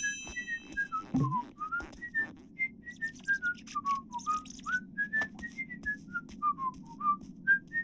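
A jaunty tune whistled in short notes, a few a second, wandering up and down in pitch, with light clicks scattered through it.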